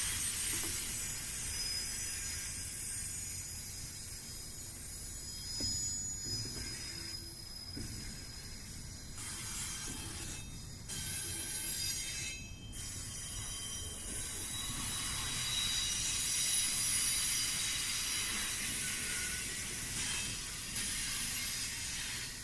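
Double-stack container train cars rolling past, wheels rumbling on the rails with thin, high-pitched squeals from the wheel flanges.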